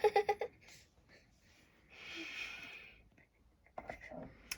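A girl's quick burst of giggling, then a long breathy exhale or wheeze of laughter about two seconds in.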